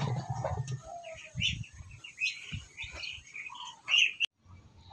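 Poultry chirping: short, high calls scattered through the first four seconds, with a few soft knocks under them.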